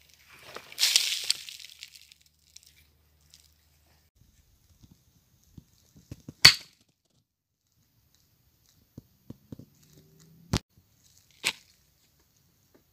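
Shale stone handled by hand: a crumbling, scraping rustle of loose rock about a second in, then scattered clicks and three sharp cracks of stone, the loudest about halfway through.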